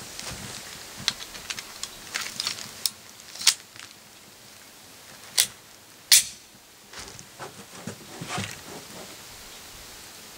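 Vostok Margolin .22 Short target pistol being handled, with a scattered series of sharp metallic clicks and clacks; the two loudest come about three and a half and six seconds in.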